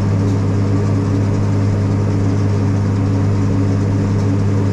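Tractor engine running at a steady speed while pulling a round baler through the hay, a constant low hum with no change in pitch.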